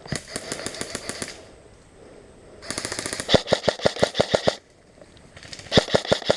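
Airsoft guns firing on full auto: three bursts of rapid clicking shots, the middle one the longest and loudest.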